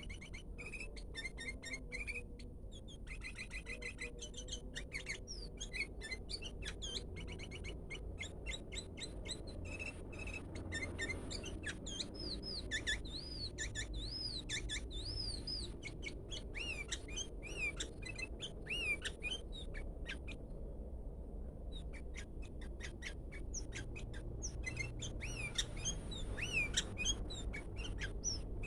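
Sooty-headed bulbul (kutilang) giving an odd, unusual song: short chirps and arched whistled notes mixed with quick runs of clicks, over a steady low hum.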